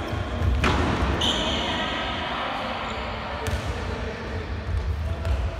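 Handball drill on a wooden sports-hall court: a ball thudding and bouncing, with a sharp impact about half a second in and a short high squeak about a second in, all echoing in the large hall.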